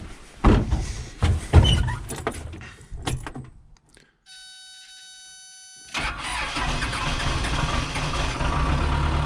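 Backhoe engine being cranked, with heavy irregular clunks as the starter struggles against an engine that had been hung up and was breaking loose. After a short near-silent pause with a faint steady tone, the engine is running steadily from about six seconds in.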